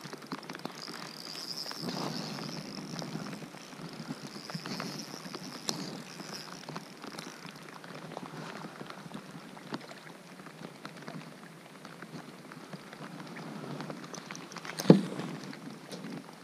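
Rain pattering on the lake surface and the kayak, with many small ticks of drops and handling. A high, steady whine runs through roughly the first half, and a single sharp knock, the loudest sound, comes near the end as the bass is brought aboard.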